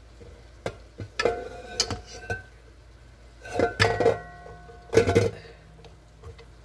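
Metal cookware and utensils clanking in three short bursts, several knocks ringing briefly.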